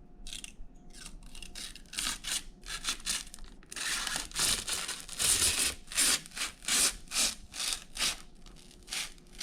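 Rhythmic scratchy rubbing strokes, about two a second, getting louder about halfway through.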